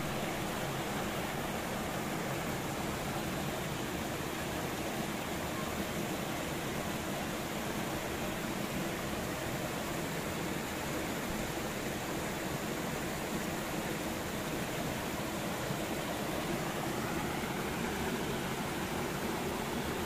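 Steady rush of a mountain stream tumbling over rocks in small cascades.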